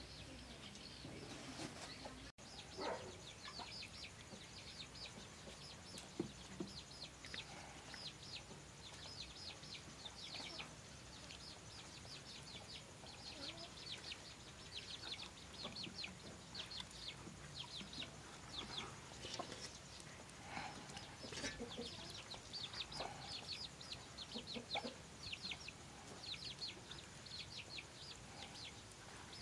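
Birds chirping: a steady run of short, high chirps, with occasional lower calls.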